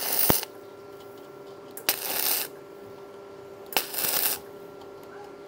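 Gasless flux-core MIG welding arc (1 mm E71T-GS wire) on thin galvanized sheet, crackling in short bursts of about half a second roughly every two seconds: stitch welding. There are three bursts, a fourth begins at the very end, and a steady faint hum runs underneath.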